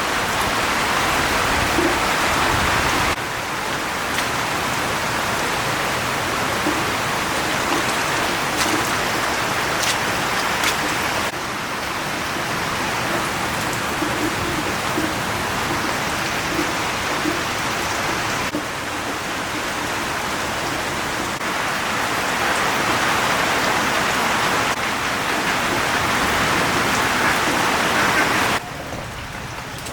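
Heavy rain falling as a dense steady hiss, its level and tone jumping abruptly every several seconds as one rain clip cuts to the next.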